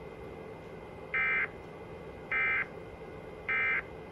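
Emergency Alert System end-of-message tones: three short, identical bursts of SAME digital data warble about a second apart, the signal that closes the alert.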